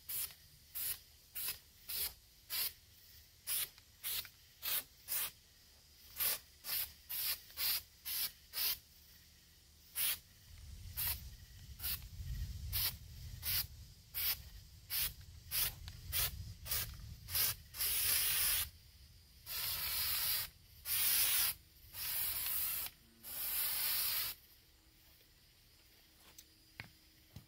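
Aerosol spray can of rubberized undercoating paint hissing in many short bursts, about two a second, then five longer sprays of about a second each near the end.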